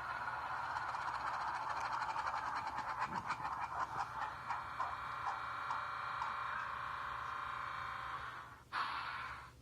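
Sound decoder in a model steam locomotive playing steam-engine sound through its small speaker: a steady hiss with a run of beats that slow down and thin out, cutting off about eight and a half seconds in, then one short hiss burst of under a second.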